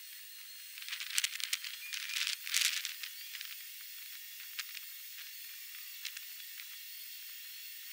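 Sandpaper scratching against an epoxy-and-popcorn pen blank spinning on a mini wood lathe: two scratchy swells in the first three seconds, then a steady thin hiss with a few faint ticks.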